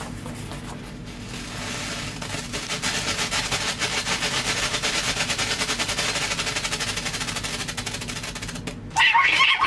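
Strobe firework going off on the ground: a faint fuse hiss, then a rapid, even train of sharp crackling pops, about ten a second. The popping builds over the first couple of seconds, eases slightly later, and stops shortly before the end.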